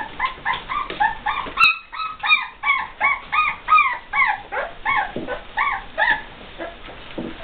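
Young puppies crying with short, high whimpers, each call rising and falling in pitch, about three a second, stopping about six seconds in. A single sharp click just under two seconds in.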